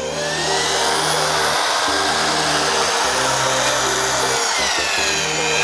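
Corded electric drill boring into a lithium-ion smartphone battery, the bit grinding through the battery's casing with a steady loud noise. The motor's whine drops in pitch near the end.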